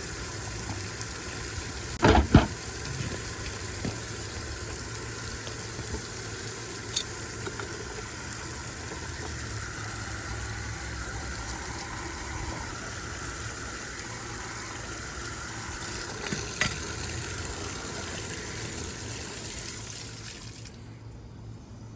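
Steady hiss of water running from an outside faucet that will not shut off, which dies down about a second before the end. A couple of sharp knocks about two seconds in.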